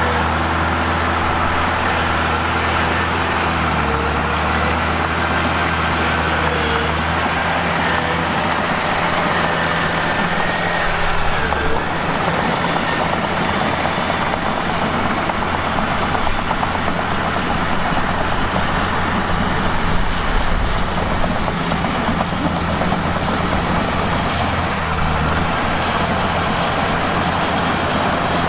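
Mitsubishi bulldozer's diesel engine running, its note shifting a few times in the first part; through much of the middle the steady engine tone is overlaid by a rougher, noisier sound as the machine works, and the steady note returns near the end.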